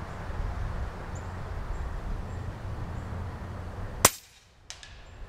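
A single shot from a .25 Cricket PCP air rifle: one sharp crack about four seconds in, over a steady low rumble, followed by a couple of faint clicks.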